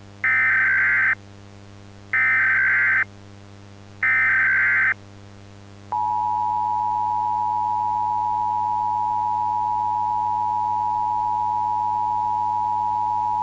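Emergency Alert System header: three short bursts of buzzing data tones, each just under a second and about two seconds apart. About six seconds in, the EAS attention signal starts, a steady two-tone alarm that holds on.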